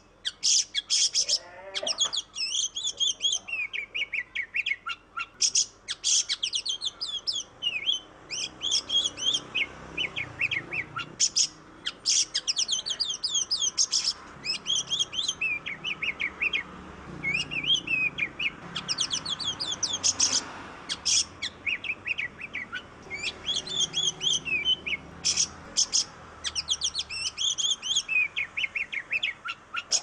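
Oriental magpie-robin (kacer) in full, continuous song: rapid, varied phrases of whistled, sliding notes mixed with sharp chips, one after another with only brief pauses.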